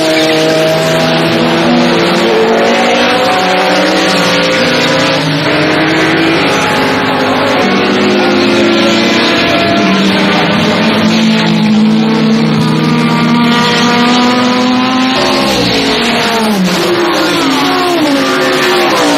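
Engines of several GTO and GTP race cars at racing speed, overlapping as a pack goes by, their pitch rising and falling with throttle and gear changes. Near the end the pitches drop several times as cars pass.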